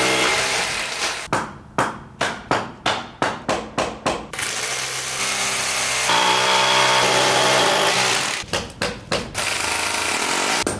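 Corded rotary hammer drilling holes for hammer-in anchors, alternating with a hand hammer driving the anchors in with quick blows, about two or three a second. About a second in the drilling gives way to a run of about eight blows. The drill runs again about four seconds in, and more blows follow near the end.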